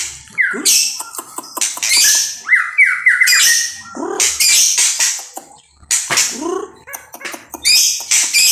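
Caged songbird singing loudly: harsh, rasping high-pitched bursts alternate with sweeping whistled notes, with a quick run of rising chirps about two and a half seconds in.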